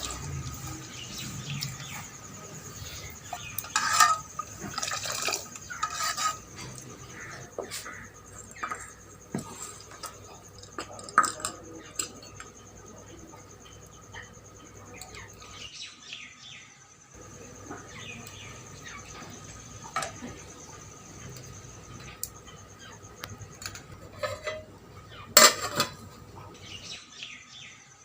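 Scattered metallic clinks and knocks, like metal pots or tins being handled, with a steady high insect-like drone behind them.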